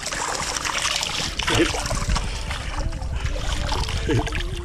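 Fast, muddy creek water rushing and sloshing close to the microphone, with a steady low rumble.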